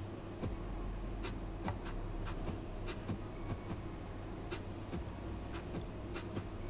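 Trading cards being handled and flipped through by hand, giving faint irregular clicks and slides as cards are shuffled from the back of the stack to the front, over a steady low hum.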